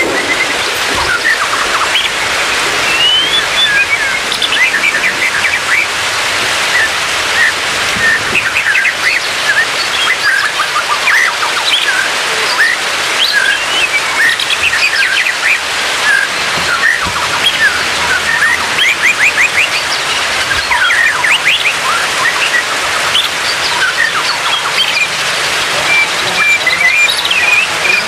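White-rumped shama singing, a continuous run of varied phrases: clear whistles, rising glides and quick trills. Under the song runs a steady rain-like hiss.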